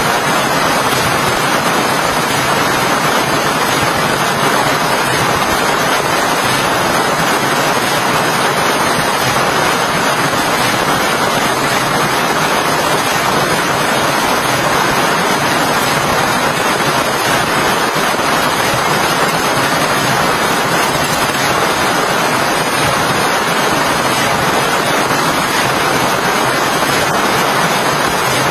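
Steady, heavy rain: a constant dense hiss that neither swells nor fades.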